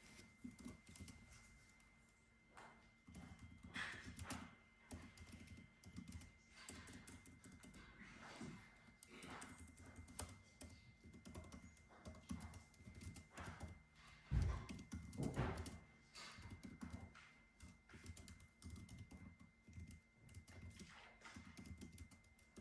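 Typing on a computer keyboard: a continuous, irregular run of faint key clicks, with one louder knock about two-thirds of the way through.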